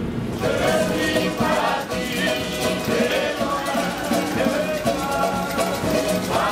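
Polynesian street band: several voices singing together in harmony over a strummed guitar, starting about half a second in.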